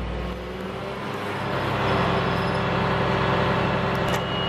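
Engine running steadily with a low hum. The noise grows about a second and a half in and then holds.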